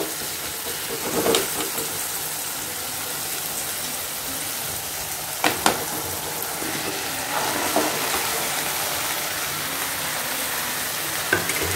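Onion-tomato masala sizzling steadily in a hot pan, with a few sharp knocks, the loudest a pair about five and a half seconds in, as chopped mushrooms and green capsicum are tipped in from a plate.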